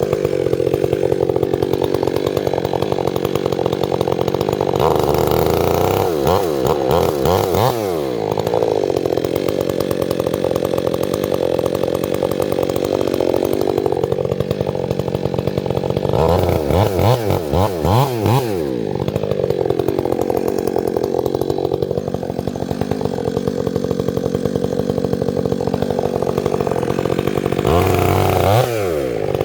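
Chainsaw engine running continuously, its pitch dipping and climbing back several times.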